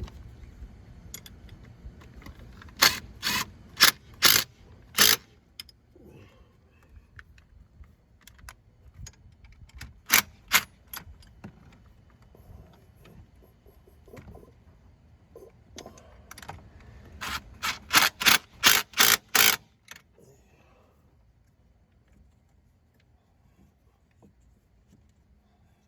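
Hand ratchet being worked in short strokes, giving three runs of sharp metallic clicks; the longest, near the end, goes at about four strokes a second.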